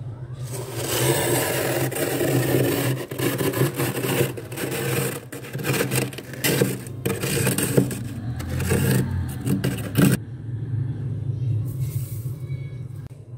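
Steel tumbler scraping thick, flaky frost off a freezer wall: a continuous crunchy scrape full of crackles. It stops abruptly about ten seconds in. A steady low hum runs underneath.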